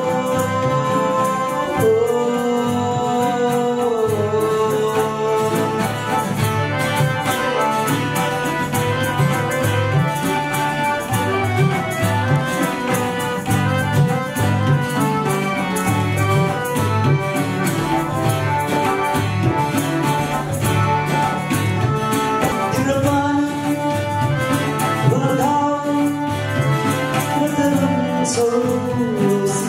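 Live song: a man singing, clearest at the start and again near the end, over strummed acoustic guitar, sustained harmonium chords and a hand drum keeping a steady beat.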